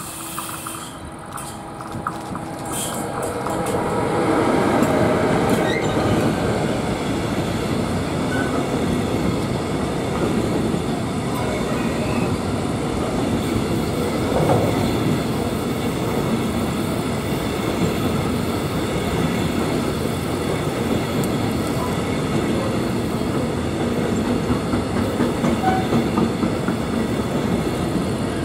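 Freight train hauled by an electric locomotive passing close by: it grows louder over the first few seconds as the locomotive comes by, then a steady rumble and clatter of covered hopper wagons' wheels rolling over the rails.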